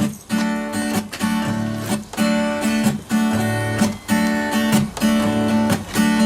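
Acoustic guitar strumming chords in a steady rhythm, an instrumental lead-in to a sung campfire song.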